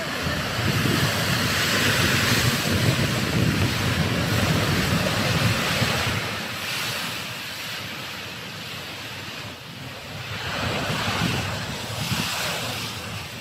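Ocean surf washing and surging, with wind rushing over the microphone. The wash swells for the first several seconds, eases, then swells again near the end.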